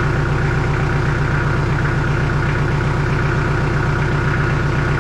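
Diesel engine of a 2006 Kubota L48 tractor loader backhoe idling steadily, with an even low pulse. It is running to pressurise the newly fitted rear hydraulic remote coupler for a leak check.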